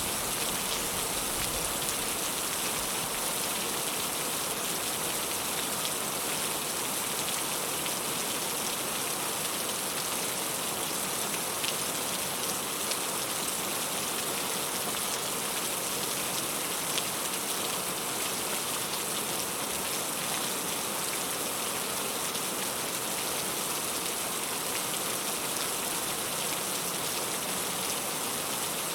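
Heavy rain falling steadily: a dense, even hiss of drops with a few slightly louder drop ticks.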